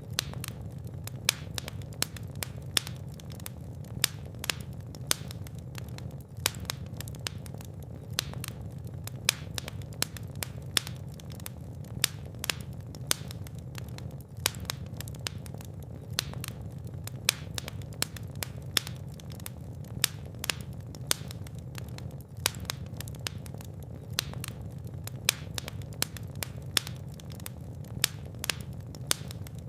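Wood fire crackling in a fireplace: a steady low rumble of burning with many irregular sharp snaps and pops, a few of them much louder than the rest.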